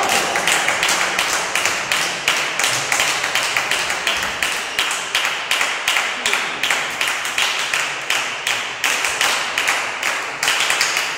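Spectators clapping in unison in a steady rhythm, about four claps a second, in a sports hall.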